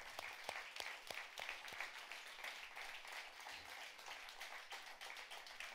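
Audience applauding: many hands clapping, fairly faint, with no let-up.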